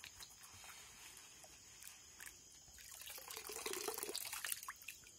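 Water splashing and trickling as a plastic gold pan is dipped into shallow muddy water and handled, louder in the second half.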